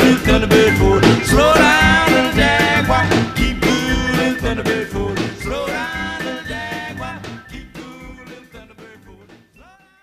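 Rock and roll song playing as background music, fading out steadily over the second half until it dies away at the end.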